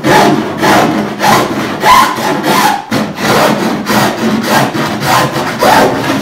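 Hand file rasping along the sharp fibreglass edge at the sheer of a cedar-strip canoe hull, in about a dozen loud strokes pushed inward. It is trimming away the still-green epoxy-and-glass overhang so the edge is safe to touch.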